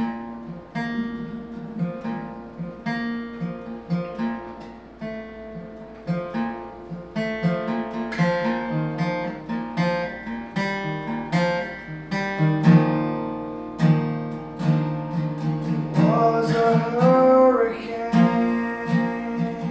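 Steel-string acoustic guitar with a capo: picked single notes at first, building into fuller, louder strumming. A short wordless vocal joins near the end.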